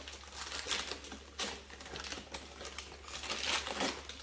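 Gift wrapping paper being torn and crinkled off a small cardboard box: irregular rustles and short rips, the loudest about three and a half seconds in.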